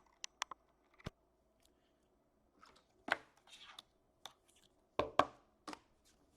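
Hockey trading cards and their packaging being handled on a table: irregular sharp taps and clicks, the loudest a few seconds in and near the end, with brief rustles in between.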